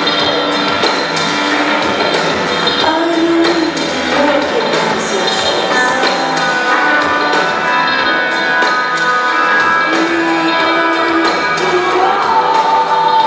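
Live electronic rock band playing, a woman singing lead into the microphone over a steady drum beat and sustained synth and guitar tones, heard through a large hall's PA.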